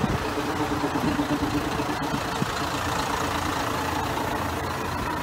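Diesel railcar engine idling steadily at a station platform, a constant low hum.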